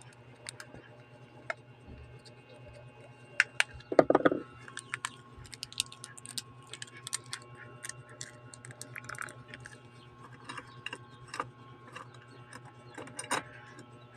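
Irregular small clicks and taps of hand tools and phone parts being handled during a phone screen repair, with a louder rattling cluster about four seconds in, over a steady low hum.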